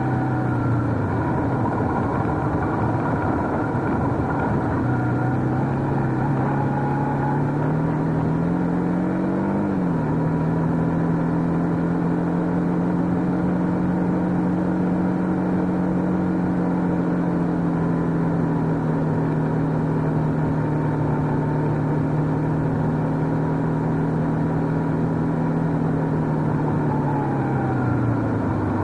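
Motorcycle engine running on the move. Its pitch drops about a second in, climbs for several seconds, falls sharply about ten seconds in as it shifts gear, then holds steady before easing off near the end.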